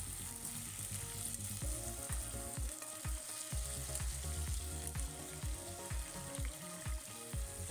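Potato slices sizzling steadily as they shallow-fry in refined oil in a kadhai, stirred with a slotted steel spoon. Soft low thumps come about twice a second.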